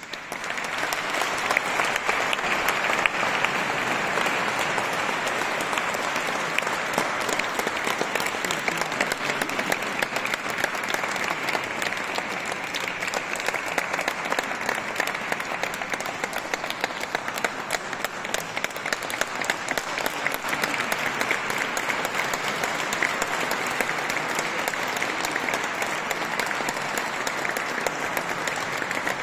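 A crowd applauding: dense, steady clapping that breaks out all at once and keeps up at an even level.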